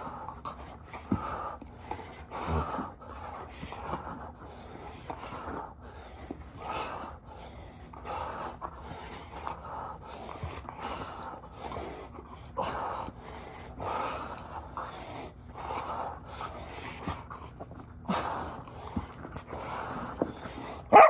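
A dog breathing noisily, a long run of quick, evenly repeated breaths.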